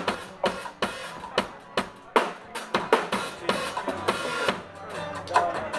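Rock band playing live with no vocals, the drum kit loudest: kick and snare hits about twice a second over keyboard and bass tones, with a longer crash about four seconds in.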